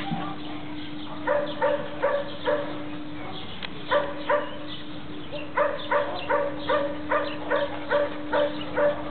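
A dog barking in runs of short, quick barks, about three a second, with brief pauses between the runs.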